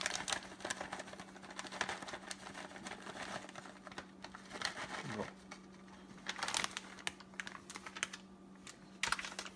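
Cheese being poured into a plastic measuring cup: light rustling with many small irregular clicks and taps.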